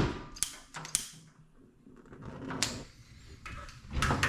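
A few scattered clicks and knocks as a frying pan and stove are handled: metal set down and the burner being lit.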